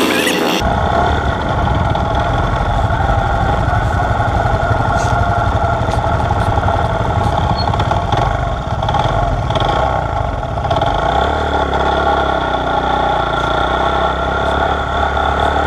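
1969 Honda SL90's small single-cylinder four-stroke engine running as the bike pulls away and rides along, with a steady engine note; the low part of the sound changes pitch about two thirds of the way through.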